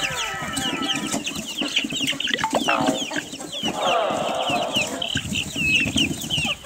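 Domestic chicks peeping: a constant stream of short, high, falling chirps, with lower clucking beneath.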